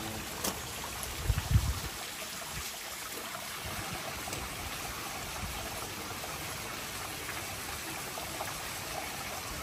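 Clear stream water running steadily, with a brief low bump about a second and a half in.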